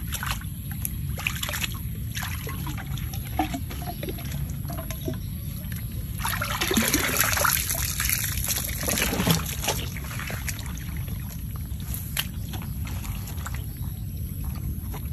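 Water pouring out of the end of a bamboo eel-trap tube and splashing onto muddy ground, loudest for about three seconds in the middle.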